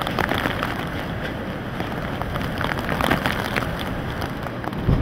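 Hurricane rain and wind: a steady rush of heavy wind-driven rain with many small drop impacts, over a low rumble of wind on the microphone.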